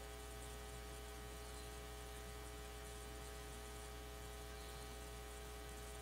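Steady low electrical hum with a row of faint unchanging tones above it and a constant hiss underneath: mains hum and room tone, with no other sound.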